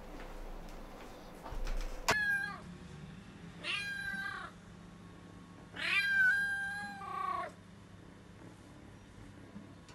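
Injured kitten meowing three times, about a second and a half apart, the last meow the longest and falling in pitch at its end.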